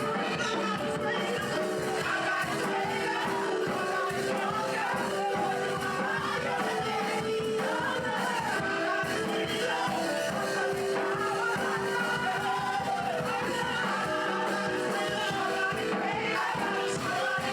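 Worship music with a congregation singing: held chords and voices singing along continuously.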